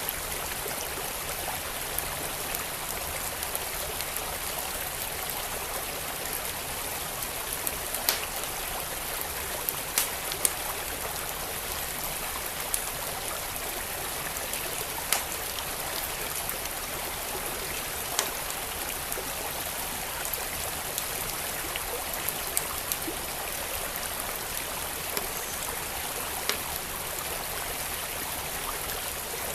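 Steady rush of a flowing creek, with the sharp crackles and pops of a burning wood fire scattered through it; a handful of pops stand out louder.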